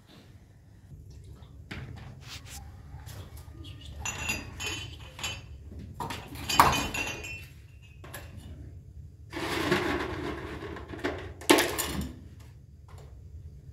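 Small glass tea glasses and dishes clinking and clattering as they are handled and set out on a tray. The two sharpest clinks come about six and a half seconds in and again near eleven and a half seconds.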